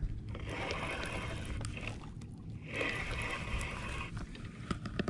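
Spinning reel being cranked in two spells, a fast ticking whir, as a hooked fish is reeled in against a bent rod. A few sharp clicks come near the end, over a steady low rumble.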